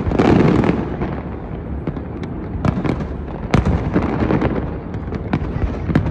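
Aerial fireworks bursting: a dense swell of crackling just after the start, then a run of sharp bangs and crackle, the loudest single bang about three and a half seconds in.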